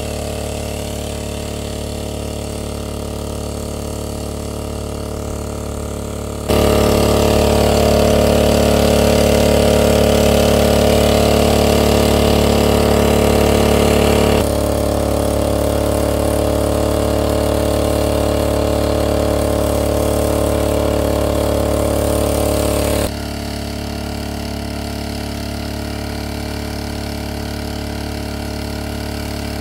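Small engine-driven water pump running steadily, pumping water out of a pool through a suction hose. It is louder through the middle stretch, with sudden steps up and down in level.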